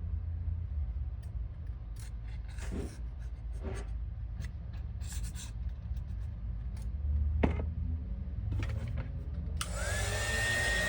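Small clicks and scrapes of handling over a low hum, then near the end a blower motor switches on with a sudden rush of air and a steady whine that rises briefly as it spins up.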